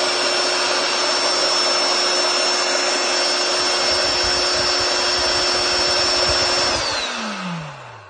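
Small portable electric air pump running with a steady whir and rush of air as it inflates a beach ball. About seven seconds in the motor stops and winds down, its pitch falling as it fades out.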